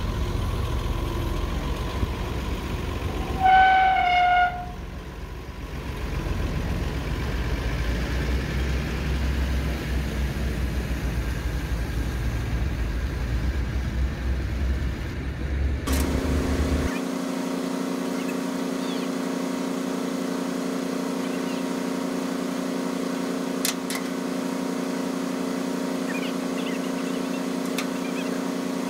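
A heavy forklift's engine running, with one horn toot lasting about a second a few seconds in, the loudest sound. About halfway through, the sound changes abruptly to a steady, even engine drone.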